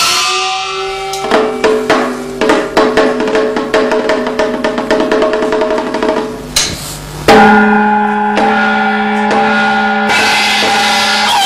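Traditional Chinese opera accompaniment: quick drum and percussion strikes over melodic instruments. About seven seconds in it changes abruptly to a sustained held melody.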